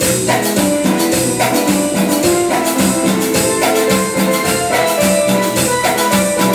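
Cumbia band playing: keyboard melody over electric bass and drums, with a steady, even percussion beat.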